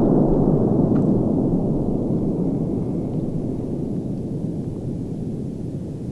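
Low rumble of a large cipolla firecracker's blast echoing back from the surrounding pine forest, fading steadily.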